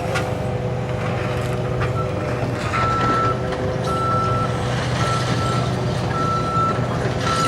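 Reversing alarm on a heavy demolition machine beeping about once a second, each beep about half a second long, starting about two seconds in, over the steady running of its diesel engine. A few sharp knocks of debris are heard.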